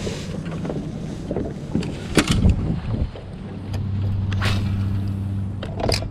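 A boat's motor hums steadily, louder from about four seconds in, with three sharp clicks or knocks of handled gear: about two seconds in, midway and near the end.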